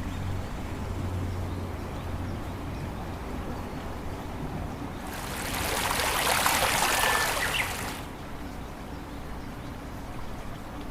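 Rushing water, loud for about three seconds: it cuts in sharply about five seconds in and stops just as suddenly, over a faint low hum.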